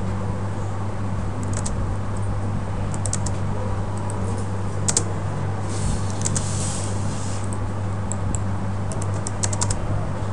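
Computer keyboard and mouse clicking in short scattered bursts as AutoCAD commands are entered, over a steady low hum.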